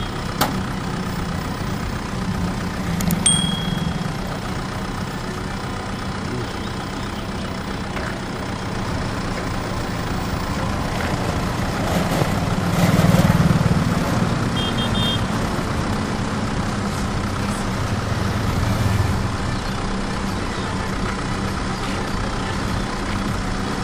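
Vehicles travelling along a paved road: a steady motor hum with road noise, swelling louder about halfway through.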